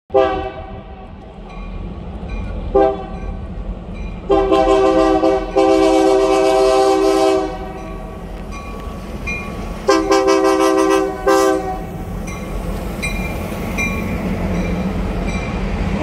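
Diesel freight locomotive's air horn played as a horn show. It gives short toots and long blasts in an uneven pattern over a steady low diesel rumble. Near the end the horn stops and the locomotives and freight cars rumble past on the rails.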